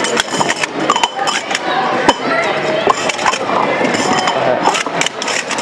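Metal sport-stacking cups clinking and clacking against each other in quick, irregular succession as they are stacked up and taken down by hand.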